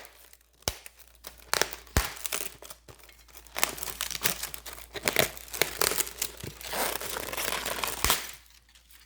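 Packaging being opened by hand: crinkling and tearing with scattered sharp clicks and knocks, busiest in the middle and stopping about a second before the end.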